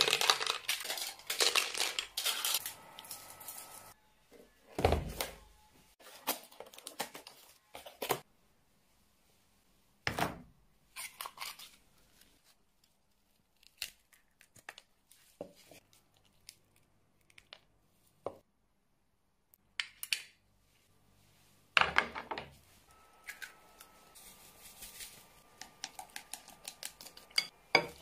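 Kitchen handling sounds as raw oysters are washed by a gloved hand in a bowl of liquid and then handled and mixed: scattered wet rustles, clicks and knocks against the bowl. The sounds are busier in the first few seconds and again near the end, with sparse single clicks between.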